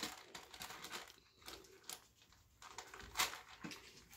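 Faint, scattered rustling and light clicks of two puppies scrambling and tussling, paws scuffing fleece bedding and a tray of litter pellets, with one slightly louder tap about three seconds in.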